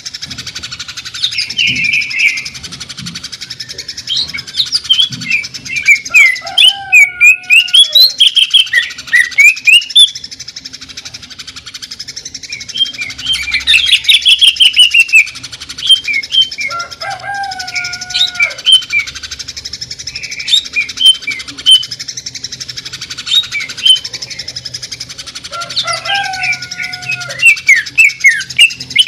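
Greater green leafbird (cucak ijo) singing loudly: a busy stream of high chirps and fast trills, with runs of rapid repeated notes, the rattling 'sewing machine' shots. A lower slurred whistle phrase recurs three times, about every nine to ten seconds.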